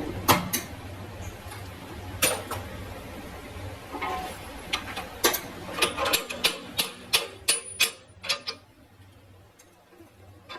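Irregular sharp clinks and knocks of metal tools and parts being handled, coming thick and fast after the middle, over a low steady hum that stops about six seconds in.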